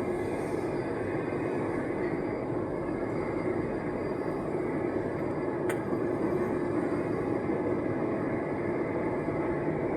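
Steady running noise heard from inside an AS-02 metro train of Santiago's Line 4 travelling between stations, with one brief click about six seconds in.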